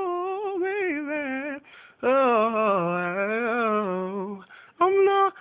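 A solo voice singing wordless, unaccompanied runs: a high run that falls, then after a short breath a lower held note that wavers and bends, and a brief note near the end.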